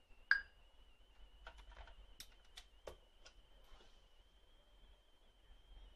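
Circuit-bent Casio SK-1 sampling keyboard played softly: one short, sharp electronic blip about a third of a second in, then scattered faint clicks over a steady faint high-pitched tone.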